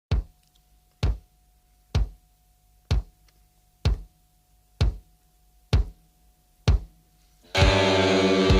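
Background music: a kick drum beats steadily about once a second over a faint held tone, then the full track comes in loudly near the end.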